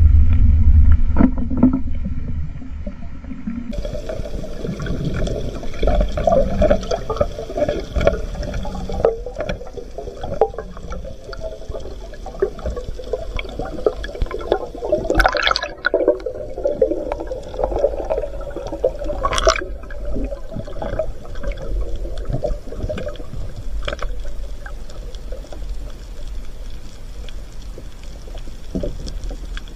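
Underwater water noise picked up through a camera housing: a steady watery rush and gurgling with scattered sharp clicks and knocks. Two brighter knocks come about halfway through, while a speared squid is handled on the spear shaft.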